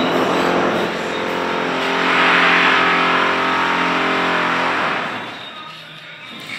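A loud motor vehicle engine passing by. It swells to its loudest about two and a half seconds in, then fades away by about five seconds.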